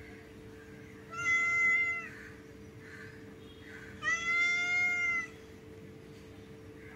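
Domestic cat meowing twice, the second meow longer than the first.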